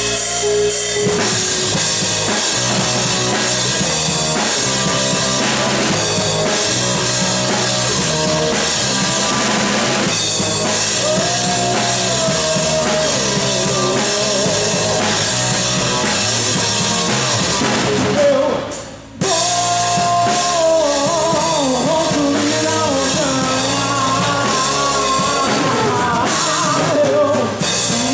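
Live band rehearsal of a gospel song: drum kit and electric bass playing along with a backing sample, with a man singing into a microphone from about halfway through. The music breaks off for under a second about two-thirds through, then comes straight back in.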